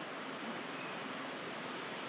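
Steady rushing outdoor background noise, an even hiss with no distinct events.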